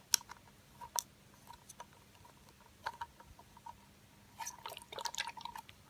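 Light clicks and taps from handling a small plastic toy globe, a few single clicks at first, then a quick run of small clicks near the end.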